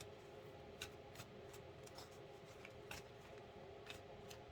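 Near silence with a few faint, scattered ticks of tarot cards being handled and laid down, over a faint steady hum.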